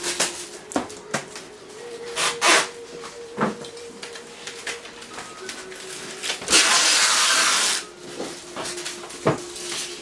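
Oil paint being worked onto a stretched canvas: scattered light taps and short scrapes of the painting tool against the canvas, with a louder rustling hiss lasting about a second past the middle. A faint hum sits underneath.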